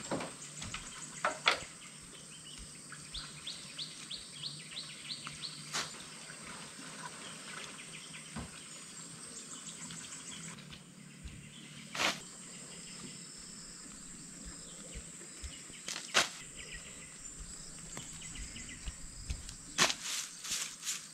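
Forest ambience: a steady high insect drone with birds chirping, one bird giving a quick series of short chirps a few seconds in. A few sharp knocks break in, loudest about a second in and twice later, and a quick run of taps comes near the end.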